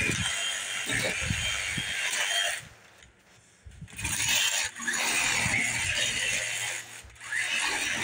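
Yellow-handled hand tool cutting through a fallen branch: a continuous scraping noise with scattered knocks, which stops for about a second and a half near the middle and again briefly near the end.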